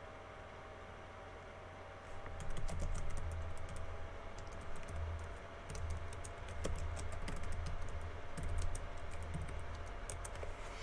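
Typing on a computer keyboard: an irregular run of key clicks that starts about two seconds in and keeps going.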